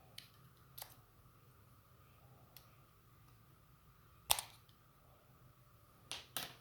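A few short, sharp clicks and taps from small objects being handled at a work surface, the loudest about four seconds in and two close together near the end, over a faint steady hum.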